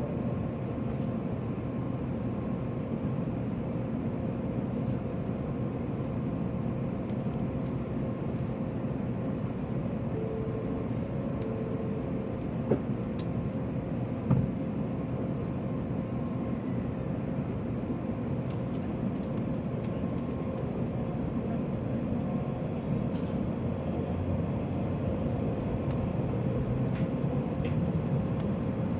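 Steady hum with a faint held tone inside the cabin of an N700-series Shinkansen standing at the platform, with two short knocks about halfway through. Near the end the low rumble grows a little as the train starts to pull out.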